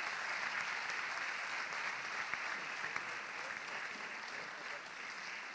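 Audience applauding: steady, dense clapping from a full hall that eases off slightly near the end.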